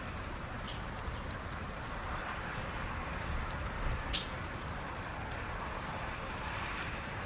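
Steady outdoor background noise with a few brief, high-pitched chirps from small birds, one sweeping downward about four seconds in.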